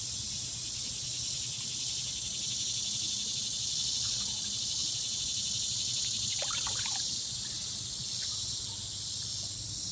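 Steady, high-pitched chorus of summer insects droning without a break.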